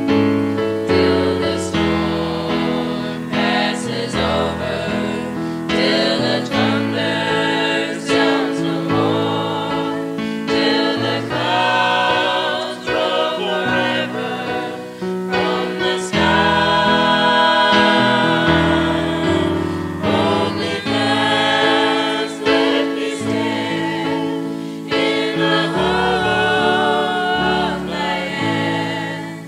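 A small group of voices, women's, girls' and a man's, singing a song together in harmony to keyboard accompaniment, with long held notes.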